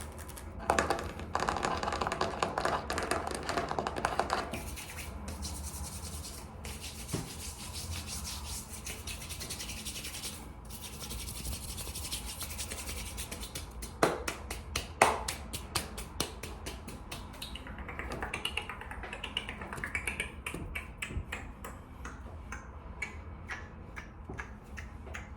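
Bare hands rubbed together fast and hard close to the microphone: a dry, rasping swish that goes on and on, loudest in the first few seconds. A few sharp clicks stand out a little after the midpoint.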